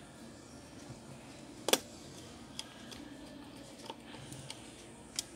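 Small screwdriver clicking against the drive-bay screws inside an HP EliteBook 840 laptop: a handful of sharp metal ticks, the loudest about one and a half seconds in.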